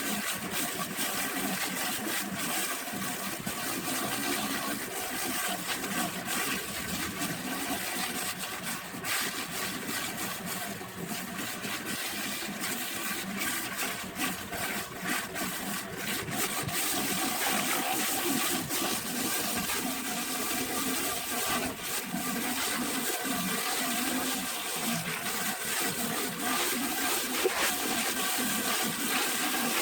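Steady rush and hiss of high-pressure water from a rotating-nozzle pressure-washer surface cleaner spraying a hard floor, with the faint steady hum of the electric pressure washer's pump.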